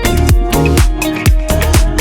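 Electronic dance music with a steady kick-drum beat, about three strokes a second.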